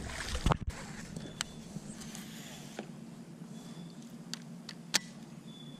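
Sounds from a fishing boat on the water: a splash and knock just after the start, then a low steady hum with a few sharp clicks of tackle being handled, the loudest about five seconds in.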